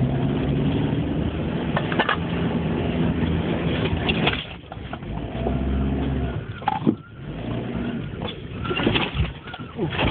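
Toyota Hilux engine pulling over a rough off-road track, heard from inside the cab. The engine eases off about four seconds in and picks up again, with several sharp knocks and rattles as the truck jolts over bumps.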